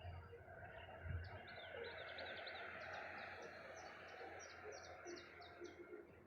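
A songbird singing: a quick string of short high chirps, then slower repeated notes about three a second. A faint steady hiss runs underneath.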